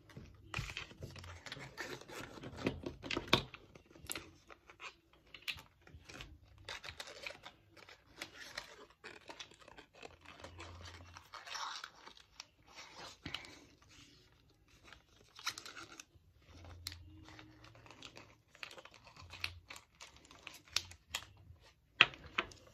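Hands packing small items into a pink organza drawstring bag: irregular crinkling and rustling of packaging, with scattered light clicks and taps as small bottles are pushed in.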